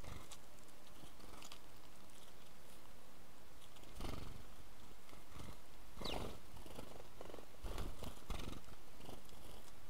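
House sparrows at a mesh seed dish: scattered pecking taps and rustling, with fluttering wingbeats as birds land and take off about four seconds in and again near eight seconds. One short, high, falling chirp comes about six seconds in.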